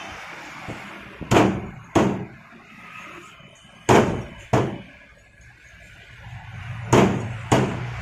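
Large curved fish knife chopping parrotfish into chunks on a thick wooden log chopping block: six sharp, heavy chops in three pairs, the two in each pair about half a second apart.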